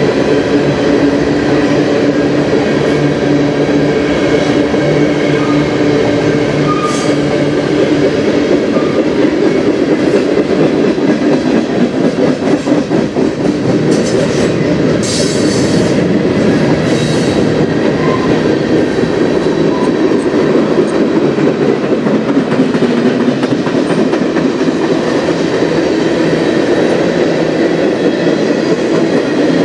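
Freight train's covered hopper cars rolling past close by: a loud, steady rumble of steel wheels on rail with a clickety-clack over the rail joints. A few short high squeals come from the wheels around the middle.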